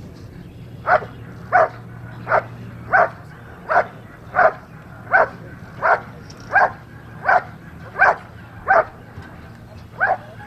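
A dog barking in a steady series, about thirteen sharp barks roughly every 0.7 seconds, with a short pause before the last one.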